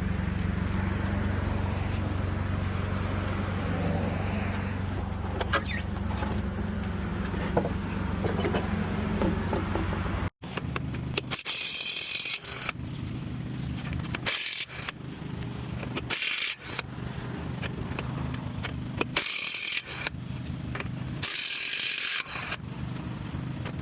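Steady low engine hum for about ten seconds, then five short bursts of high hissing air-tool noise, such as an air impact wrench working the lug nuts during a tire change.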